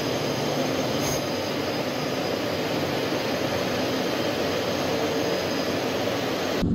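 Military jet engine noise heard from aboard the aircraft: a steady, even rush with a faint high whine.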